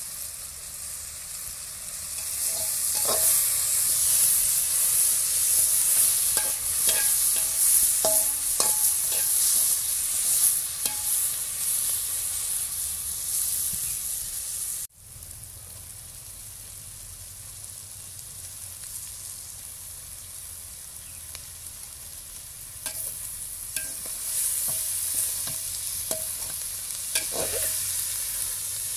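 Onions and mushrooms sizzling as they fry in oil in an aluminium pan, with a metal ladle clinking and scraping against the pan as they are stirred. About halfway through the sizzle cuts off abruptly and returns quieter.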